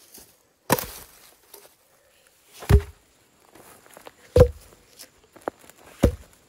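Heavy sawn log rounds thudding down onto one another, four solid wooden knocks about a second and a half to two seconds apart.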